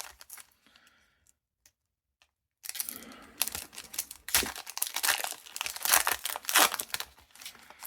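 Foil wrapper of a Pokémon trading card booster pack crinkling and being torn open, with cards handled and shuffled. The crackling dies away to near silence for about a second and a half, then starts again and keeps up.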